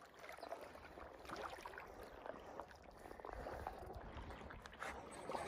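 Faint lapping water, with scattered light clicks and knocks.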